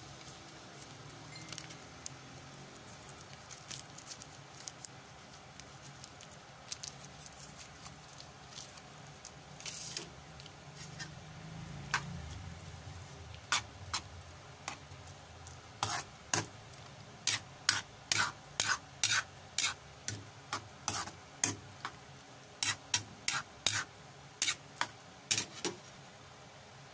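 Pancit bato noodles simmering with a faint sizzle in broth in a cooking pan. In the second half a utensil stirs and tosses them, clicking and scraping against the pan many times in quick runs.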